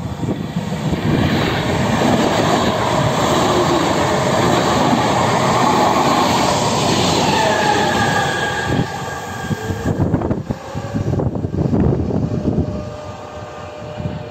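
Passenger train passing close by: a loud rush of wheels and running gear, with a high whining tone in the middle of the pass. A few sharp knocks follow as the last cars go by, then the sound dies away.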